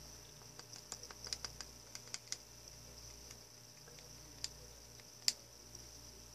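Light plastic clicks and taps of small paint cups being handled and set in place: a quick irregular cluster in the first couple of seconds, then two sharper clicks later, over a faint steady high hiss.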